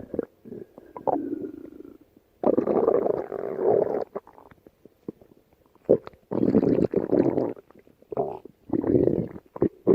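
Stomach growling and gurgling in several separate rumbles, two of them long and loud, with small wet clicks and gurgles in between.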